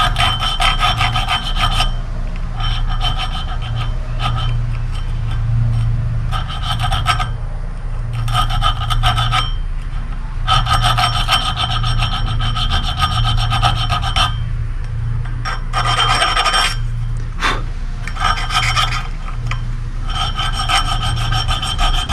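A small hand file rasping back and forth over brass brazed onto a cast-iron gear's teeth, in repeated runs of quick strokes with brief pauses and a ringing metallic tone. The file catching on the cast iron is the sign that enough brass has been taken out.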